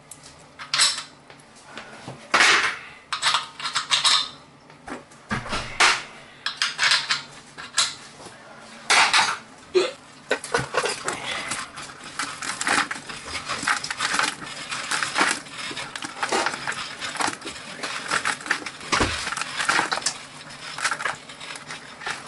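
Irregular clatter and scraping of limescale being raked by hand out of an electric water heater's tank and dropping into a plastic bucket, busier in the second half.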